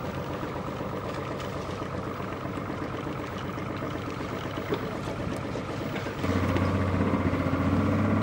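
Boat engine running slowly, then about six seconds in it opens up and runs louder with a steady low hum as the boat gets under way.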